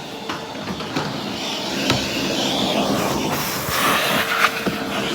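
Vacuum cleaner running with a steady whine while its nozzle works over car carpet, grit rattling up the hose in scattered clicks and knocks.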